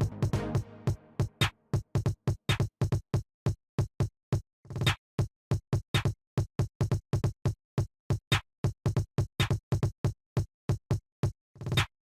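Electronic background music with a fast drum-machine beat.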